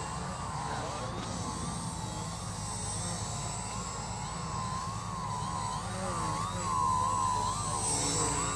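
High whine of small electric RC aircraft motors in flight, the pitch wavering up and down continuously and growing a little louder about seven seconds in.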